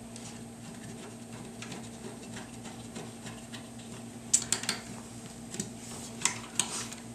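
Light clicks and taps of screws, tools and metal parts being handled while a rifle is fitted into a bullpup stock. Faint scattered ticks come first, then a quick cluster of sharper clicks about four seconds in and a few more near the end.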